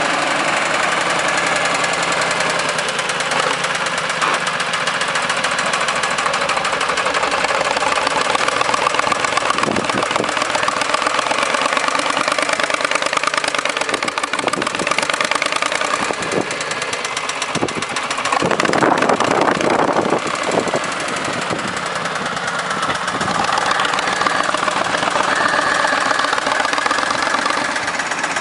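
Backhoe loader engine running steadily, with a louder, clattering stretch about two-thirds of the way through.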